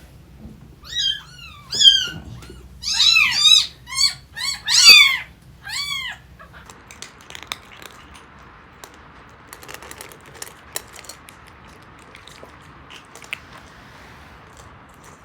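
A kitten meowing: a rapid string of about eight short, high-pitched meows over the first six seconds, then only faint light clicks and rustles.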